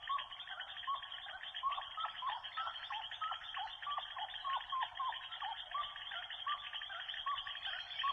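Wildlife ambience: a dense, fast-ticking chorus with short calls repeated every half second or so, thin-sounding as if band-limited.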